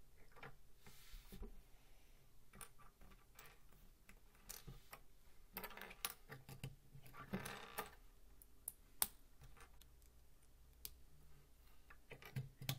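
Small plastic Lego bricks clicking and tapping as they are handled, pressed together and set down on a wooden table, with a stretch of rustling about halfway through.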